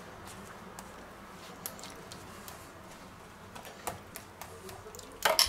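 A metal spoon spreading tomato sauce over pizza dough, with a few faint ticks and scrapes. Near the end come several sharp metallic clinks of the spoon against the stainless steel saucepan.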